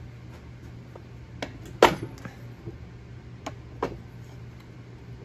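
A 30 lb horizontal steel propane tank being set down on a wooden deck: a few knocks, the loudest about two seconds in with a short ring after it, then two lighter knocks as it is settled into place.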